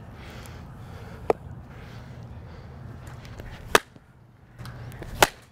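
A cricket ball coming off a willow cricket bat with a sharp crack about two thirds of the way in, then another sharp knock about a second and a half later, over a low steady hum. The bat's handle has cracked again through its glued repair.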